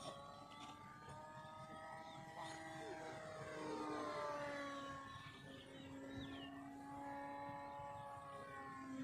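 Electric motor and propeller of a radio-controlled Piper J-Cub model plane in flight: a steady whine that grows louder and drops in pitch as the plane passes, about four seconds in, then holds lower.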